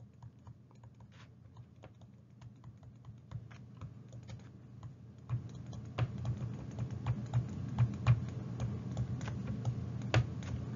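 Stylus tapping and scratching on a pen tablet while an equation is handwritten: an irregular run of small clicks, faint at first and louder and denser from about halfway through.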